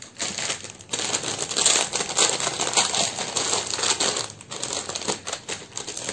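Gold-plated jewellery clinking and rattling continuously as it is handled, small metal pieces knocking together, with some crinkling mixed in; the clatter eases briefly a little past four seconds.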